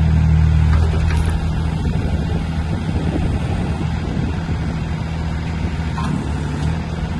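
Diesel engine of a YFE20 mini excavator running with a steady low drone while the boom and bucket are worked, a little louder in the first second.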